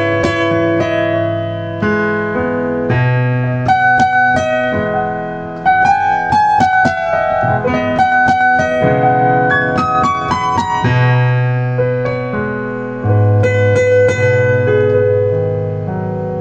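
Solo piano playing a Chinese pop song on a keyboard using a sampled Yamaha CFX concert grand piano sound. It plays a melody of struck notes over held low bass notes and chords.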